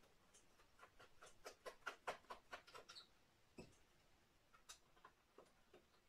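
Faint quick clicking of a screwdriver backing a screw out of a metal shield on a computer motherboard, about six clicks a second for a couple of seconds, then a few scattered clicks.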